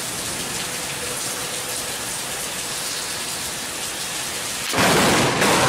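Heavy rain pouring steadily, with a sudden, louder burst of noise about five seconds in.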